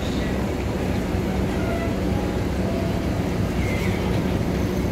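SM42 diesel-electric shunting locomotive's engine running steadily as the locomotive rolls slowly up to the train.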